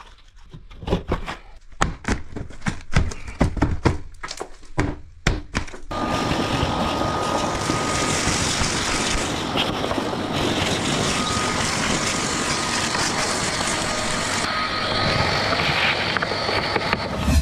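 Hammer blows knocking at plasterboard and timber framing, a rapid series of sharp knocks. About six seconds in, a loud, steady mechanical noise takes over.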